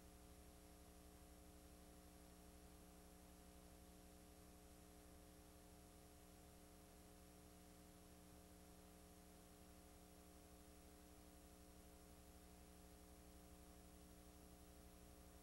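Near silence: a faint steady electrical hum with hiss, the noise floor of a blank stretch of videotape.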